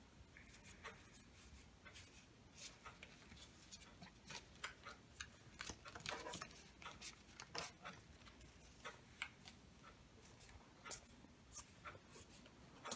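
Faint, irregular clicks and soft rustles of Pokémon trading cards being flipped through and slid against each other by hand.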